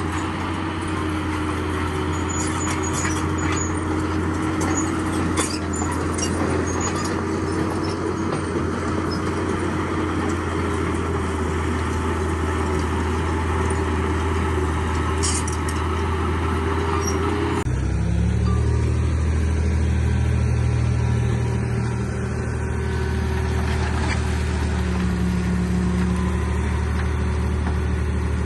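Diesel engines of heavy earthmoving machinery running steadily, with a few sharp metallic clanks in the first several seconds. About two-thirds of the way through the engine sound switches abruptly to a different machine running at a steady, lower pitch.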